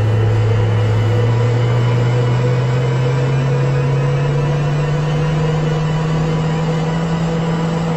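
A low hum with a steady hiss, the hum slowly rising in pitch over the whole stretch.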